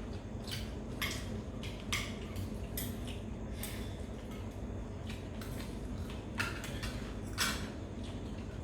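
Scattered light clatter and clinks of utensils and dishes during a meal, a dozen or so short irregular sounds over a steady low hum.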